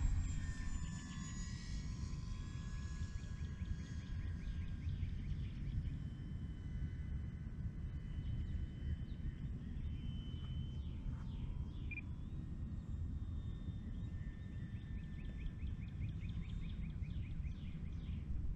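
Steady low rumble of wind on the microphone, with the faint whine of the E-flite Air Tractor RC plane's electric motor flying overhead, its pitch falling at the start as it passes.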